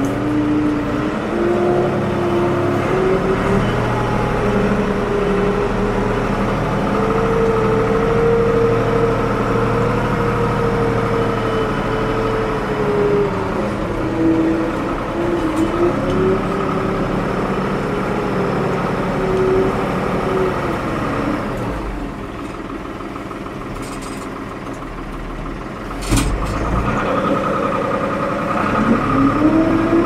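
Ford 550 backhoe's diesel engine running and working, its speed rising and falling with the load. About two-thirds through it settles lower and quieter, then a sharp knock sounds and the engine revs back up near the end.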